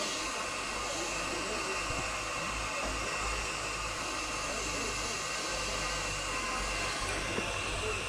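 Steady hissing background noise with a low rumble underneath, unchanging, with no distinct events.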